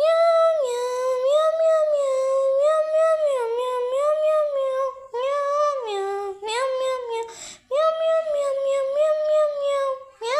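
High-pitched wordless sung melody in long phrases, the notes sliding smoothly up and down, with short breaks about five seconds in and again near seven and a half seconds.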